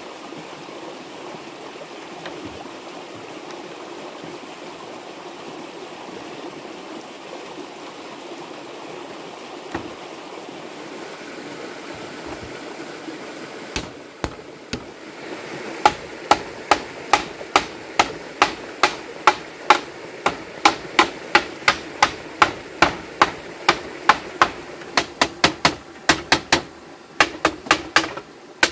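A bamboo chair frame being knocked together with a length of bamboo used as a mallet: a rapid run of sharp wooden knocks, about three a second, starting about halfway through, after a single knock a little before. A steady rushing noise lies underneath throughout.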